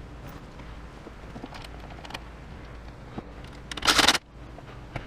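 Handling noise: scattered light clicks, then a brief, loud rattling clatter about four seconds in that stops abruptly.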